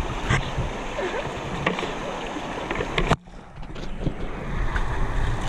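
Shallow river water splashing and sloshing around bathing elephants, with wind noise on the microphone. About three seconds in, a sharp splash is followed by the sound going muffled and quieter for about a second before returning.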